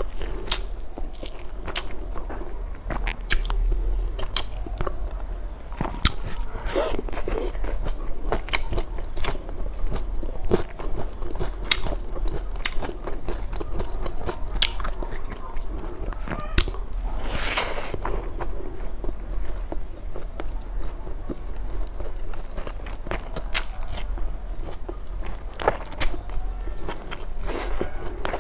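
Close-miked eating sounds: chewing and mouth smacks, with many irregular small clicks and one louder noisy burst about seventeen seconds in.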